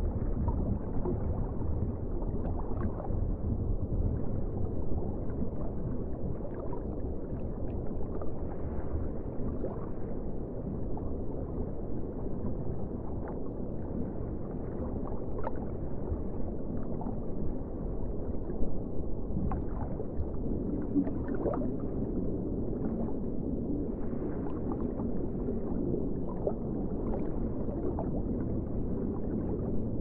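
Underwater ocean ambience: a steady, deep, muffled rumble of moving water, with faint gurgles and small ticks scattered through it.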